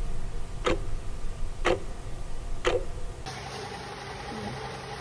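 Clock-ticking sound effect: three loud ticks about a second apart, stopping a little after three seconds in, followed by a steady hiss with a low hum.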